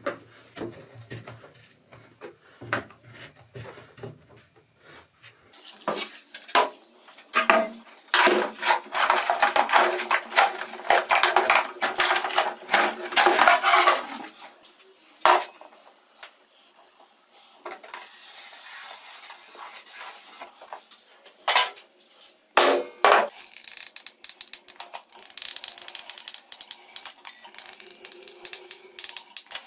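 Plastic pipe parts and plywood pieces being handled and fitted together: repeated knocks, clicks and scraping, with a dense stretch of clattering about eight to fourteen seconds in and a few sharp knocks later on.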